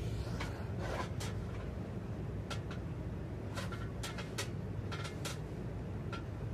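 Scattered sharp plastic clicks and rattles from handling a flexible octopus tripod and clamping a phone into its holder, several in quick succession around the middle, over a steady low hum.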